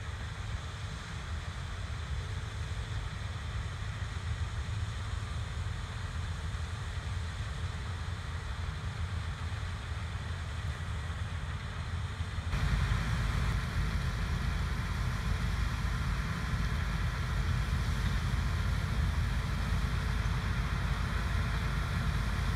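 Large diesel farm machinery running steadily, a low rumble that abruptly gets louder and fuller about twelve seconds in.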